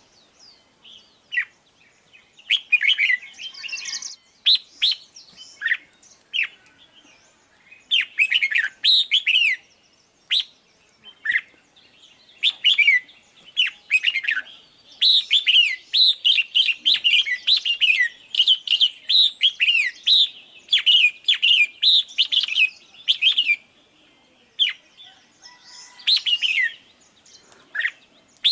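Red-whiskered bulbul calling: phrases of quick, downward-sliding chirps separated by short pauses, with a long busy run of chirps about halfway through.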